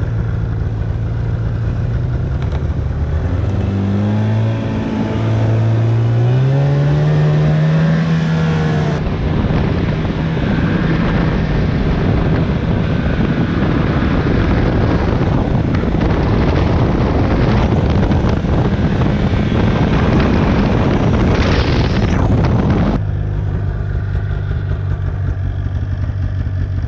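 Snowmobile engine running while riding. Its pitch rises as it speeds up from about four to eight seconds in, then a louder rushing run follows. The sound changes abruptly twice, about nine and twenty-three seconds in.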